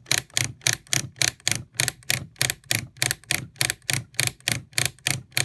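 Rotary wafer switch in a Heathkit IG-72 audio generator clicking through its detents, turned back and forth in a steady run of about four clicks a second. The switch is being worked to spread DeoxIT contact cleaner over its contacts and shine them up.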